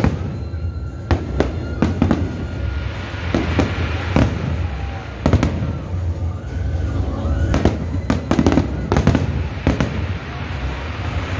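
Aerial firework shells bursting overhead in an irregular run of sharp bangs, a dozen or more, over a steady low rumble.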